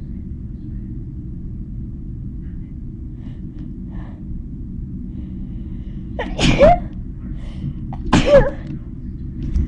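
A woman sneezing loudly twice, about six and eight seconds in, in deliberately induced sneezes. A steady low rumble runs underneath.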